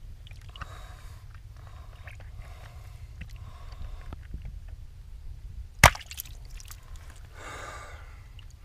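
Hand handling of the plastic cap and switch parts of a PVC septic diverter valve sitting in water: faint rubbing and sloshing, with one sharp click about six seconds in and a short rush of noise near the end.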